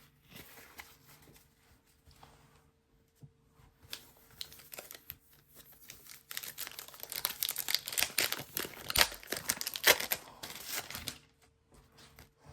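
Paper and card rustling and crinkling as trading-card packs and cards are handled and torn open: scattered faint rustles at first, then a busier, louder stretch of crinkling about halfway through that dies away shortly before the end.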